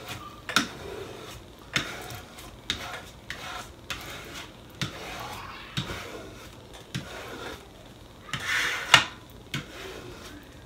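Plastic squeegee rubbed and scraped over vinyl transfer tape on a wooden board, pressing a stencil down: a run of short, irregular scrapes and clicks, with one longer scrape near the end that finishes in a sharp click.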